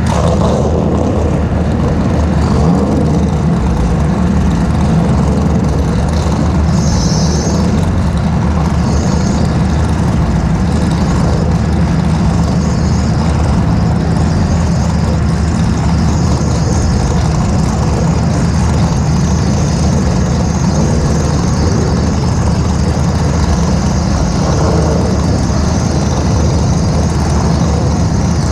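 BMW E30's M20 straight-six engine idling steadily while the car sits stationary.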